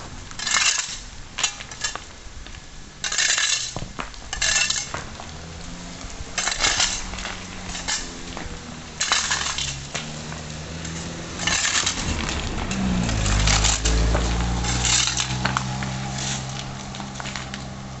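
Small shovel scraping and clinking over rocks and gravel on wet asphalt, in repeated strokes every second or two. A vehicle engine hum comes in about six seconds in and swells to a low rumble around thirteen seconds.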